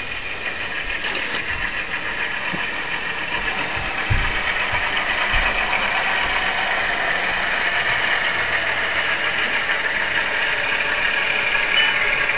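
Diesel locomotive engine sound from a model Alco C420, running steadily and growing gradually louder as the locomotive approaches. A couple of brief low thumps come about four and five seconds in.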